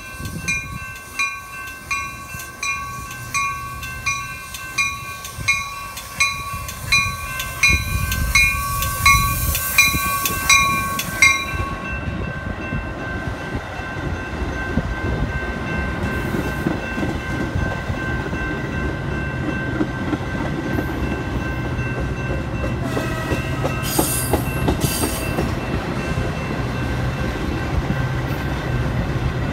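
A railroad grade-crossing bell rings about one and a half strokes a second as a Metra bi-level commuter train rolls through the crossing. The strokes give way about a third of the way in to the steady rumble and wheel clatter of the double-deck coaches passing close by.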